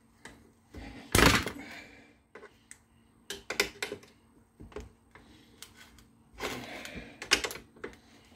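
Tools clicking and knocking against the parts of a circular saw being taken apart while a pin is worked loose: one loud knock about a second in, scattered small clicks, and a scrape lasting about a second near the end.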